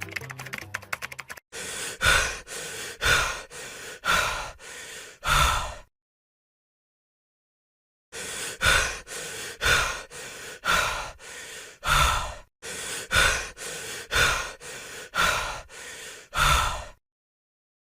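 Heavy, rhythmic human breathing in and out, alternating louder and softer breaths with about one loud breath a second. It stops dead for about two seconds, then carries on.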